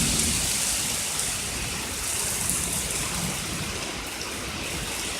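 Heavy thunderstorm downpour: a steady rushing hiss of hard rain.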